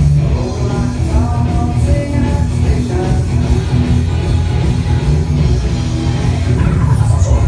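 Loud dance music played over a sonido sound system, with a falling high sweep near the end.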